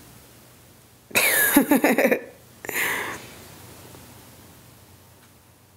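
A woman coughs twice, first a longer cough about a second in, then a shorter one soon after.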